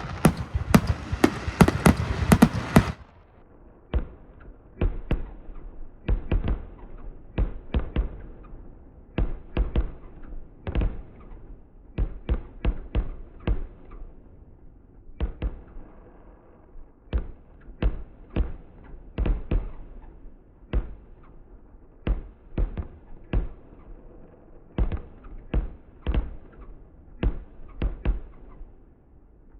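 Fireworks going off: about the first three seconds are a dense, loud rapid crackle of bangs, then irregular pops and bangs, some in quick clusters, continue sounding dull and lower-pitched, as fireworks audio slowed down for slow motion.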